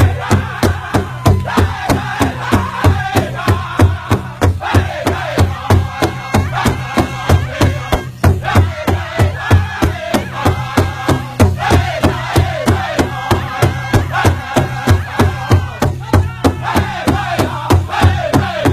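Pow wow drum group singing a men's chicken dance song: several men sing together in a high, bending style over one large shared powwow drum struck in unison, a steady beat of about three strikes a second.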